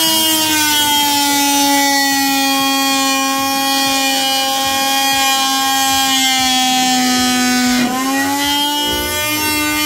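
Silverline 300 W corded oscillating multi-tool running under load as its blade cuts through C16 softwood timber, a steady high whine. The pitch sags slowly as the blade bites, then jumps back up about eight seconds in as the load eases.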